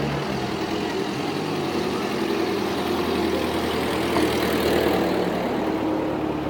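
Engines of vintage cars driving slowly past, a steady low engine hum. It grows loudest about four to five seconds in, as an old wooden-bed pickup truck passes close by.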